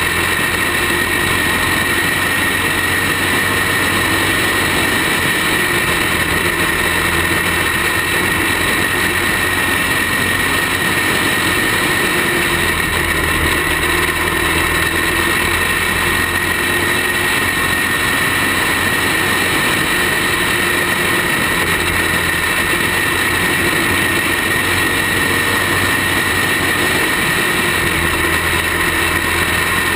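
Racing kart engine running at race speed, heard from the kart's own onboard camera, loud and steady throughout.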